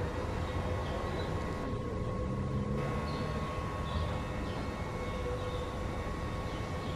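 Steady low outdoor rumble under a faint constant hum, with a few faint short high chirps.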